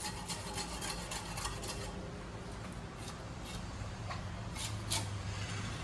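Knife working through a seer fish on a cutting board: a quick run of short scraping strokes for about two seconds, then a few sharper, louder strokes near the end, over a steady low hum.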